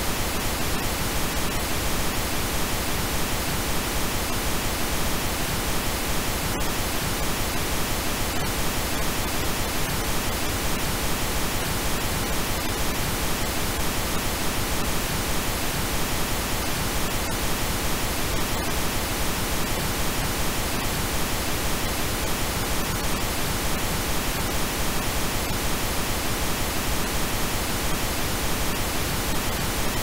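Steady synthetic pink noise: an even, unchanging hiss spread across all pitches.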